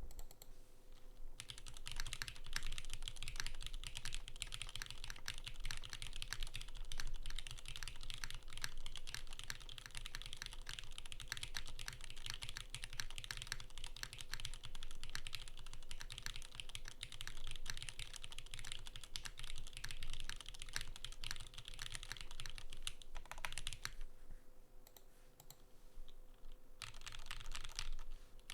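Continuous fast typing on a plateless custom mechanical keyboard with lubed Gateron X switches and GMK Carbon keycaps: a dense stream of keystroke clicks. The typing stops for about three seconds near the end, then starts again.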